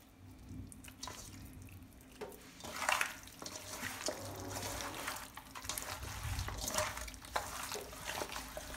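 Hands squishing and rubbing seasoned raw chicken pieces together in a stainless-steel bowl, working the dry seasoning into the meat: irregular wet squelches and rubs with a few light clicks, louder about three seconds in and again near seven seconds.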